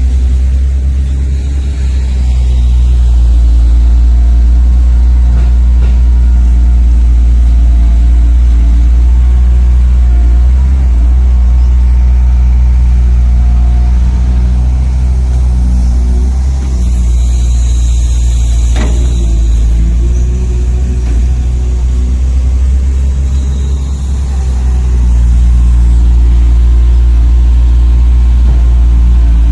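Engine sound of radio-controlled construction models, a steady, loud low drone that rises and falls a little in pitch, with a brief drop in level near the end.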